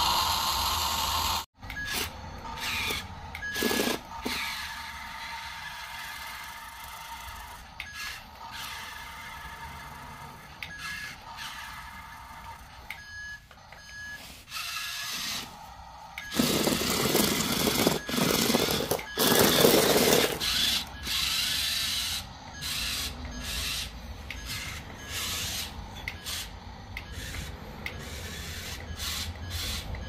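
Radio-controlled toy construction vehicles at work: a repeated short electronic reversing beep over the whir of small electric motors, with a louder stretch of rushing noise a little past halfway.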